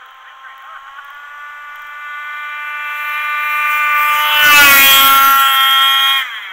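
Petrol Rovan Baja RC buggy's two-stroke engine running at high revs, a steady high buzz that gets louder over several seconds. Its pitch dips about four and a half seconds in, and it cuts off sharply about six seconds in.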